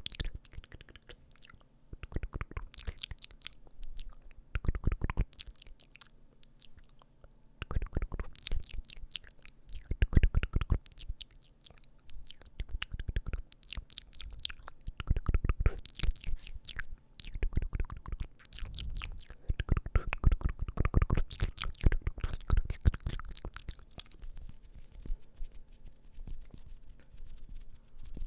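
Close-miked ASMR mouth sounds: wet clicks and smacks of the lips and tongue, coming in irregular clusters with short pauses between them.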